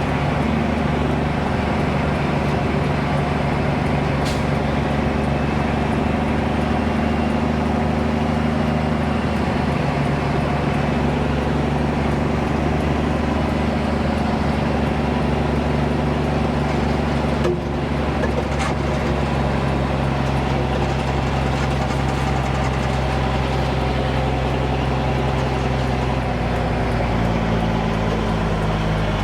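Dump truck's diesel engine running steadily at low revs, its pitch stepping down about three-quarters of the way through.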